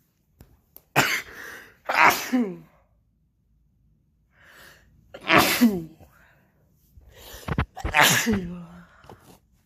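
A woman sneezing four times in quick succession, loud sudden bursts each ending in a cry that falls in pitch, with sharp breaths between them: a sneezing fit brought on by a bad head cold.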